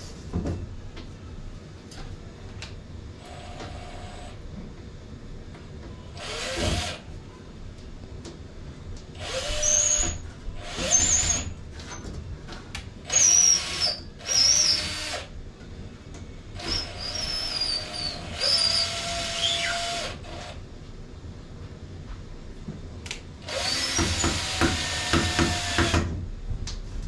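Black and Decker cordless drill driving screws into the wooden base in about eight short bursts, its motor whine rising in pitch at the start of each, with a longer run near the end.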